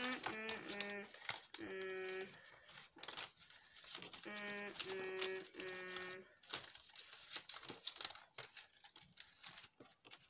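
Paper crinkling and rustling as a folded paper fortune teller is creased and pressed back into shape, with a person's voice singing a few held notes in the first half.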